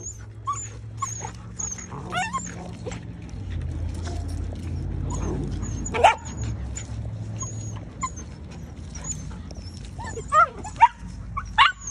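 Puppies and an adult Belgian Malinois at rough play: scattered short yips and whines, with a louder yelp about six seconds in and several more near the end.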